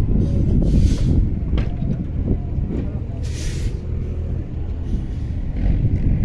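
A large vehicle's engine running with a steady low rumble, and short hissing bursts of released air about a second in and again past three seconds, over faint voices.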